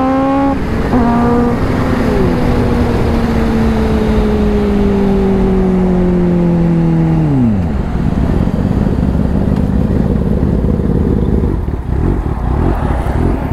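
Kawasaki Ninja H2's supercharged inline-four engine, heard from the rider's seat, running at a steady high pitch that sags slowly. About seven and a half seconds in, the pitch drops sharply as the throttle is closed. Then comes wind and road rush as the bike coasts down, with the engine low underneath.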